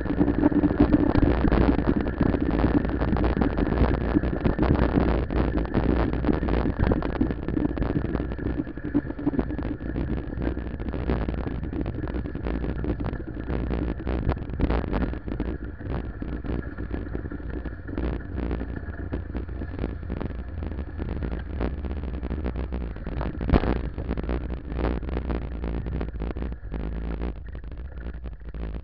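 Ride noise from a low-mounted camera on a moving bicycle: a steady rumble of tyres on asphalt with wind on the microphone and rapid rattling and knocking from the mount over the rough surface. It is loudest in the first third and eases off later, with one sharper knock about three-quarters of the way through.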